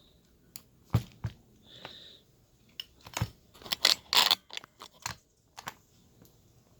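Small steel padlock parts being handled during disassembly: a string of sharp clicks and knocks, with a louder burst of scraping and rattling about four seconds in.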